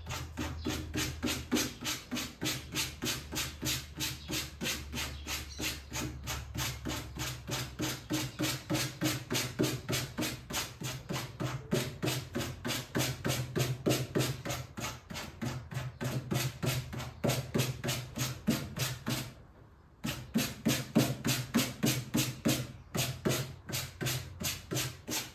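Fringe of a macramé table runner being combed out by hand, in short rapid strokes at about four a second, with a brief pause about twenty seconds in.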